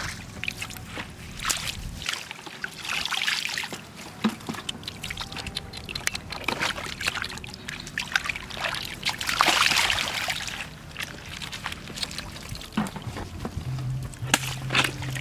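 Splashing and sloshing in shallow muddy water, with irregular surges of trickling and pouring, loudest about three seconds in and again around nine to ten seconds.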